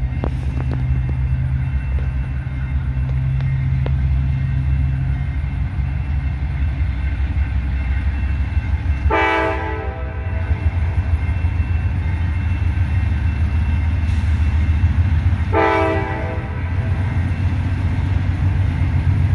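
GE AC4400CW diesel locomotive leading a freight train, its engine running with a heavy low drone under throttle. Its air horn sounds two short blasts, about halfway through and again some six seconds later, and a third starts at the very end, as it approaches a grade crossing.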